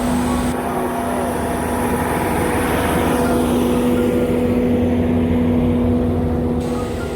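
Heavy road-work machinery running with a steady engine hum over a rough mechanical noise, a little louder in the middle.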